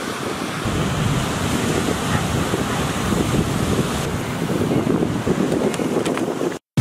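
Steady wash of beach surf with wind rumbling on the microphone, which cuts off suddenly near the end.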